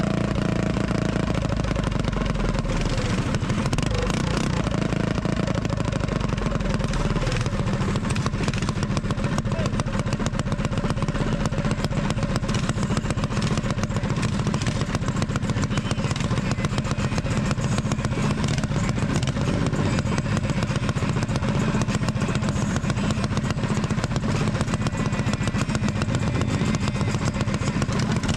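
Several minibikes' small single-cylinder engines idling together in a steady, fast putter, with the nearest engine loudest.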